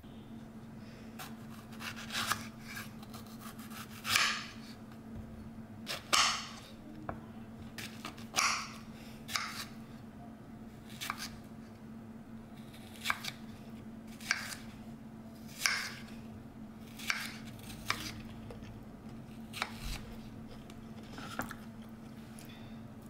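Kitchen knife slicing a peach into wedges on a wooden cutting board: about a dozen and a half separate cuts, each ending in a knock on the board, one every second or two, over a steady low hum.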